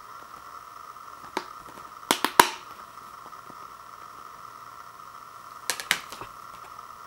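Sharp plastic clicks from a Blu-ray keep case as the disc is pressed and prised off its snap-in centre hub: one click, then a quick group of three about two seconds in, the loudest, and two more near the end, over a steady hiss.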